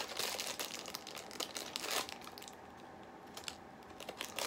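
A small blind-bag wrapper crinkling and tearing as it is pulled open by hand. The crinkling is busiest for the first two seconds or so, then drops to a few light clicks before picking up again at the end.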